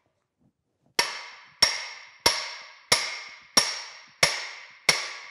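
Hammer blows on a steel shaft used as a drift: seven ringing metallic strikes, evenly spaced about two-thirds of a second apart, starting about a second in. They are driving an old bronze bushing out of a cast-iron machine casting, and the bushing is moving with each blow.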